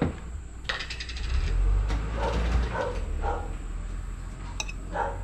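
A metal fork clicking and scraping against a ceramic plate as food slices are moved onto it, over a low rumble. There is a sharp clatter about a second in and more clicks near the end.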